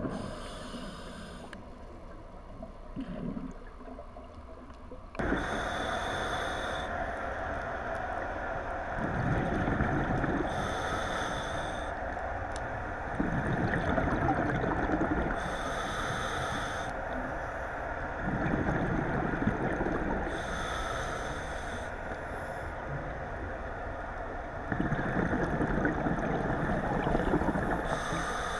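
A scuba diver breathing through a regulator underwater: a short hissing inhale, then a low rumbling burst of exhaled bubbles, the cycle repeating about every five seconds. A steady rushing noise comes in about five seconds in and runs underneath.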